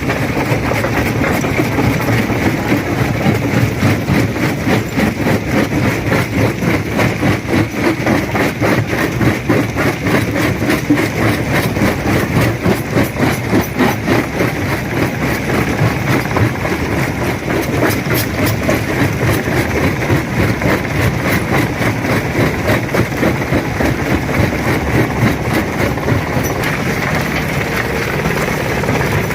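Stone crusher running under load, rocks cracking and rattling through it in a dense, continuous stream of knocks over the low hum of the machine.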